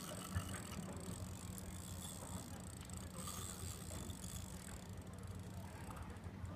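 Fishing reel clicking and whirring as line is worked against a fish still fighting, over a steady low hum.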